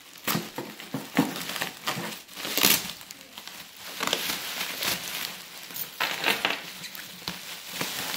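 Bubble wrap being pulled, crinkled and rustled by hands as a part is unwrapped inside a cardboard box, an irregular run of crackles and rustles.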